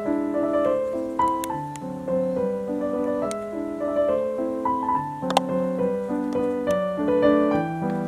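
Background piano music: a slow melody of held notes over chords, with a few light clicks over it.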